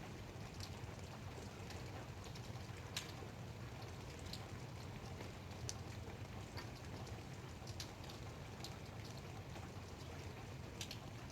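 Light rain falling, with scattered single drops ticking sharply a few times a second over a steady low rumble.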